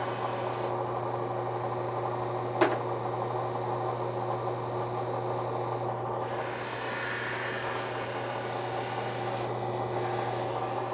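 Electric belt grinder running with a steady motor hum while a stainless steel muzzle brake is ground against the abrasive belt to cut its taper. The high grinding hiss stops about six seconds in and starts again about two seconds later, and there is one short sharp squeak about two and a half seconds in.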